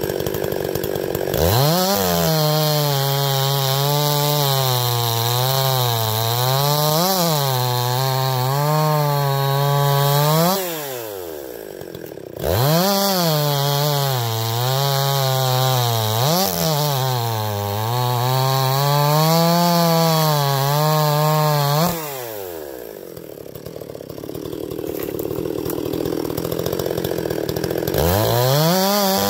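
Freshly rebuilt, muffler-modded Husqvarna 254XP two-stroke chainsaw cutting through ash logs. Its engine pitch sags and wavers under load in the cut. The engine drops off twice, once about a third of the way in and again about three-quarters through, before revving back up.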